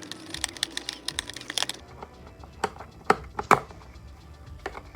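Packaging being handled during an unboxing: a quick run of crackling clicks, then three sharp knocks close together a little past the middle and one more near the end.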